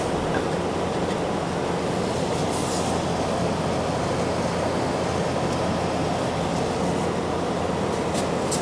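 Steady, even drone of a workshop power tool running, with no strikes or pauses.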